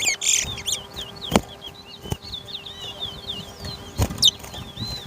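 Towa towa (chestnut-bellied seed finch) singing a fast run of short, high chirping and warbled notes, with a few sharp knocks in between.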